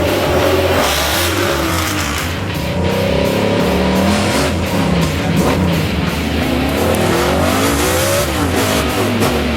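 A 1970 Hemi Challenger's V8 revving, its pitch rising and falling several times, heard over heavy rock guitar music.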